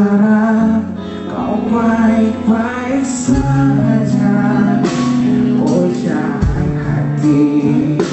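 A singer's voice carrying a wavering, ornamented dangdut melody over a live band of electric guitars, keyboard and hand drums.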